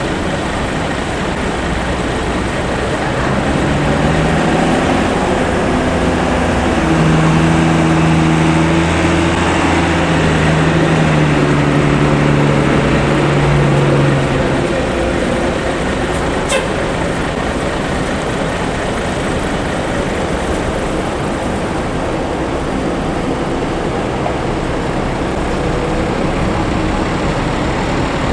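Bus 'telolet' musical horn playing a tune of held notes that step from pitch to pitch for about ten seconds, over steady traffic and engine noise. A single sharp click follows a couple of seconds after the horn stops.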